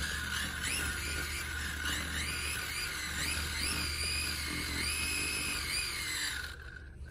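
Music with a melody that slides up and down, cutting off abruptly near the end, over a steady low hum.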